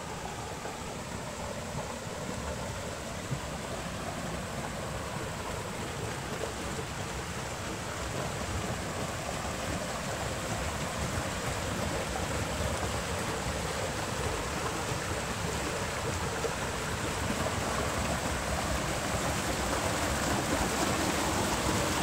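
Forest stream rushing down a narrow channel cut in layered rock, tumbling over small cascades: a steady rush of water that grows gradually louder.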